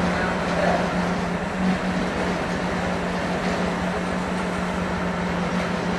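Honda Click 125i scooter's single-cylinder engine idling steadily, a constant hum with a fast, even pulse.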